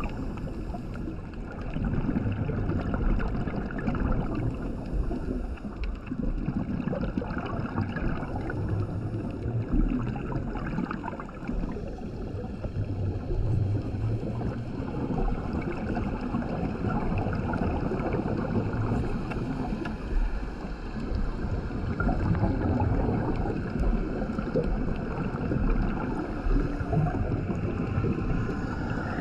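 Scuba diver breathing through a regulator underwater: hissing inhalations and bubbling exhalations that rise and fall over several seconds, heard through a GoPro's underwater housing.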